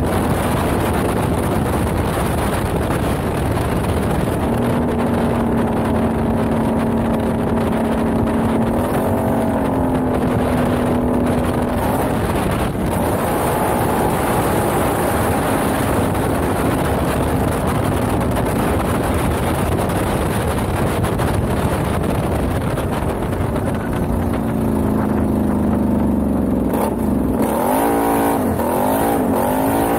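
Can-Am XMR ATV's engine running hard under steady throttle while the quad slides and spins on loose gravel, over a constant hiss of tyres throwing gravel and dust. The engine note climbs about a third of the way in and revs up and down several times near the end.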